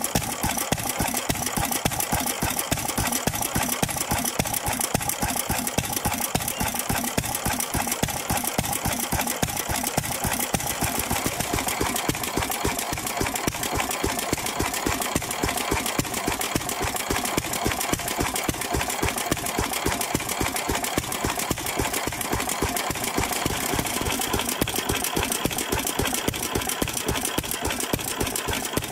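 1926 International Harvester M Type 3 hp single-cylinder stationary engine running steadily on a petrol and kerosene mix. It gives an even, rapid, regular beat of firing strokes and valve-gear clatter.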